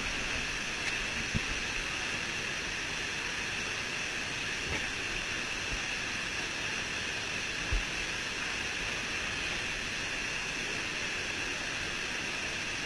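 Steady rushing noise of falling water from a waterfall, with a couple of faint knocks.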